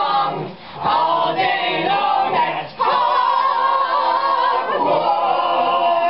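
A group of voices singing loudly together without accompaniment. There are short breaks about half a second and nearly three seconds in, then a long held note.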